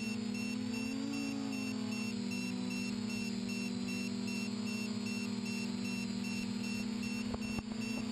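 TBS Discovery FPV quadcopter's electric motors and propellers whining steadily, close to the onboard camera. The pitch lifts slightly about a second in and settles again. A couple of short clicks and a brief dip come near the end.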